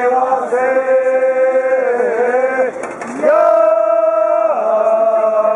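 Men's voices chanting long held notes: one drawn-out note, a brief break, then a louder new note that shifts in pitch partway through.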